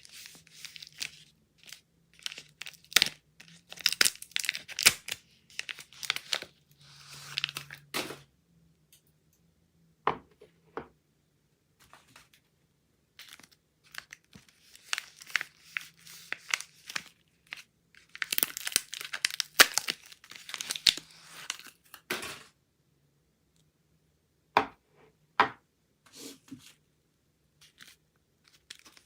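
Soap wrappers being torn open and crinkled by hand, in bursts of tearing and rustling with a few sharp clicks and short pauses between.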